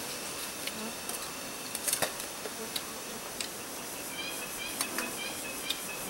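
Spoons clicking against bowls as people eat, over a steady high insect drone. From about four seconds in, a run of short high chirps joins in.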